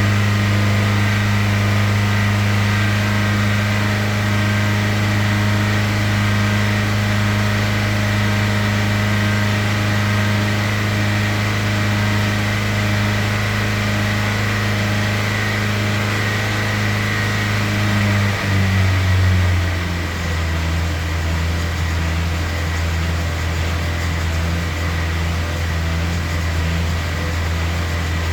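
Hyundai Sonata engine held steadily at high revs, around 3000 rpm, with the pitch sagging a step about eighteen seconds in as the revs fall off. The engine is being held above 3000 rpm for several minutes as a remedy for a tick-tick noise it makes at idle.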